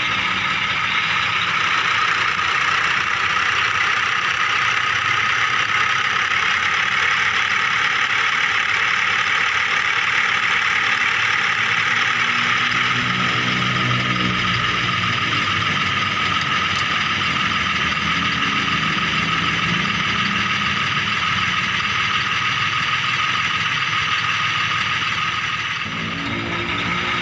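Remote-control toy vehicle running with a steady mechanical whir, its lower tone shifting briefly around the middle and again near the end.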